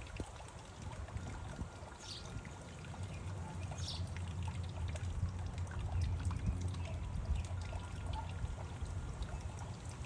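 Water from a small bubbler fountain in a terracotta birdbath, welling out of the top and trickling down into the basin, running steadily.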